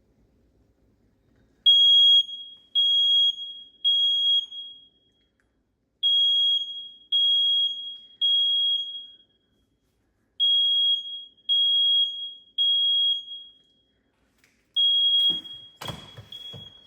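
Smoke alarm sounding its high-pitched temporal-three evacuation pattern: three short beeps, a pause, repeated three times. A fourth group breaks off near the end among a few loud knocks and clicks.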